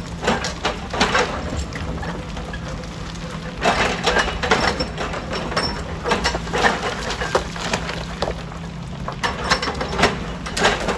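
Rocks clattering and cracking against each other and against steel in quarry crushing work, in clusters of sharp knocks, over the steady low hum of a diesel engine running.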